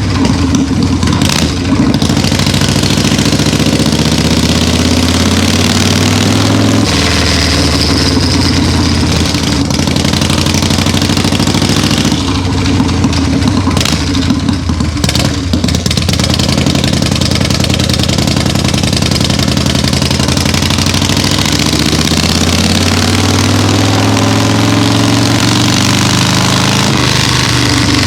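1979 Harley-Davidson Shovelhead V-twin running through a freshly fitted shotgun exhaust, held at idle and revved, with sharp throttle blips about a second in and again around the middle, and the revs rising near the end.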